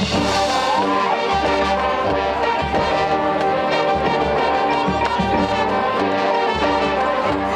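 Marching band playing, the brass section holding full sustained chords over low bass notes.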